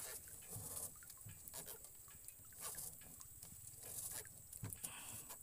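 A large baung catfish in a wire-mesh fish trap making short, scattered creaking grunts, the sound bagrid catfish make by rubbing their pectoral spines when caught and handled.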